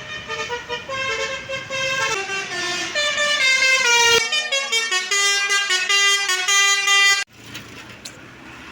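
Bus 'telolet' horn, a Basuri-type multi-trumpet musical air horn, playing a loud melody of held notes that step up and down, faster toward the end. It cuts off suddenly about seven seconds in, leaving quieter street noise.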